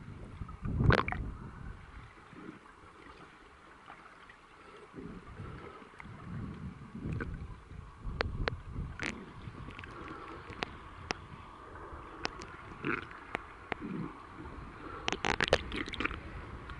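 Underwater sound of a swimmer's front-crawl strokes and kicks: low gurgling, churning water with scattered sharp clicks and crackles of bubbles, a louder surge about a second in and a cluster of crackles near the end.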